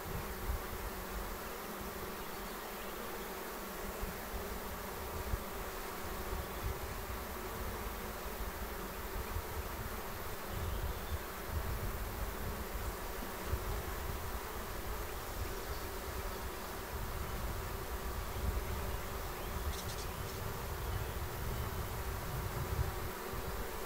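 Steady hum of a honeybee swarm clustered on the front of a nucleus hive.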